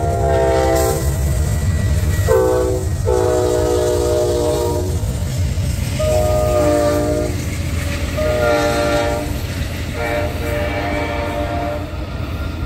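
Amtrak diesel locomotive's multi-note air horn sounding a series of about six blasts, short and long, the typical signal for a grade crossing. Under it, the low rumble of the passing passenger train.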